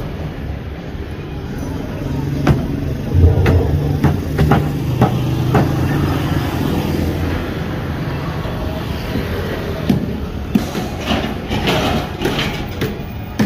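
Street ambience: background voices over a steady low engine hum, with scattered knocks and clicks.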